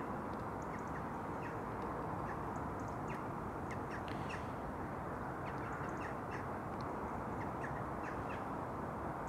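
Steady wind noise on the microphone, with birds calling in short, scattered chirps over it.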